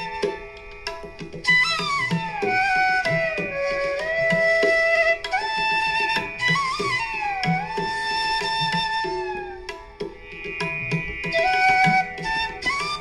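Instrumental background music in Indian classical style: a flute melody of held notes that slide between pitches, over tabla drumming.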